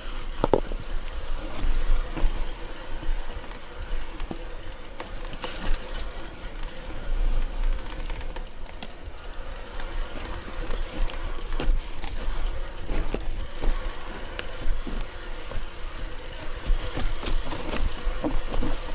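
Mountain bike rolling fast down a dirt forest trail: tyres running over earth and roots, with the bike's frame and chain rattling and knocking over the bumps and the rear hub's freewheel clicking as it coasts.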